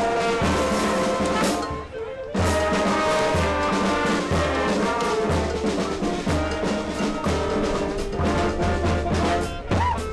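Brass-band music, trombones and trumpets playing over a regular bass pulse. It breaks off briefly about two seconds in, then carries on.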